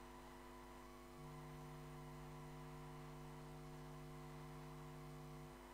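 Faint, steady electrical mains hum in the sound system. A lower hum tone joins about a second in and cuts off near the end.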